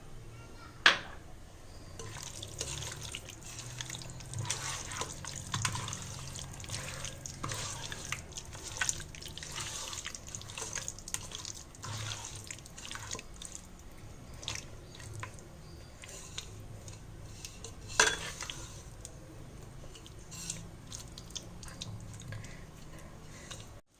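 Chicken marinade of curd, oil and ghee being mixed in a bowl: irregular wet squelching and stirring, with two sharp knocks, one about a second in and one about three quarters of the way through.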